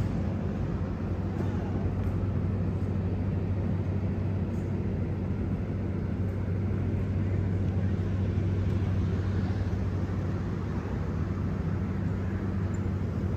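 Heavy diesel truck engine idling: a steady low drone with an even hum.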